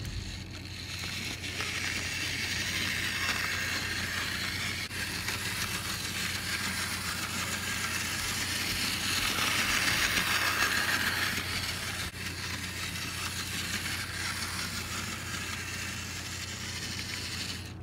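Bachmann HO-scale 4-8-4 Northern model steam locomotive with an old pancake motor, running along the track: a steady motor whir and wheel noise on the rails, louder for a few seconds around the middle. Freshly cleaned and lubricated, it runs fairly well for an engine of its age.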